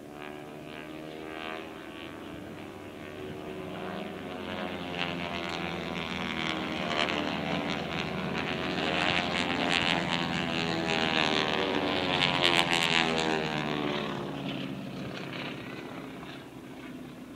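Aerobatic display planes flying over, their engines growing louder to a peak about twelve seconds in, then fading as they pass, the engine note bending in pitch as they go by.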